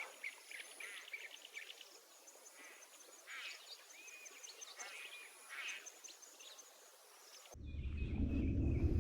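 Several birds calling outdoors: rapid runs of short chirps and arched whistled notes. About seven and a half seconds in, the birdsong gives way abruptly to a louder, steady low rumble.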